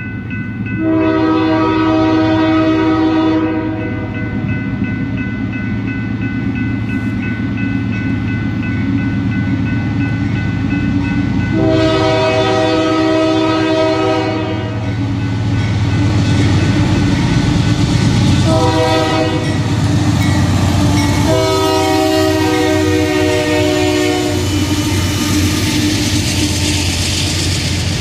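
Approaching freight train's diesel locomotive sounding its air horn in the grade-crossing pattern: two long blasts, a short one, then a long one, over the steady rumble of the engines. Near the end the horn stops and a rising rush of wheel and car noise comes as the train draws level.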